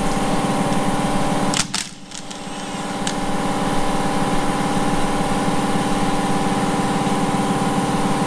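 Steady mechanical hum of a small motor running, made of a set of even tones. It cuts out briefly about two seconds in, then builds back up to the same steady level.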